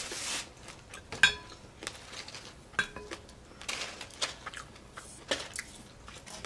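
A styrofoam takeout box being handled while fried appetizers are taken out of it onto a plate: soft foam rustling and scraping, broken by a few sharp clinks on the hard plate, the loudest about a second in.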